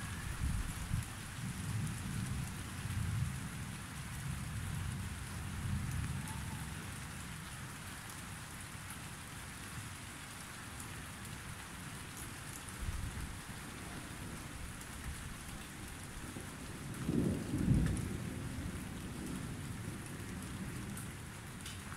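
Thunderstorm: steady rain falling, with rolling thunder rumbling at the start and dying away over the first few seconds. A second roll of thunder swells and fades about three-quarters of the way through.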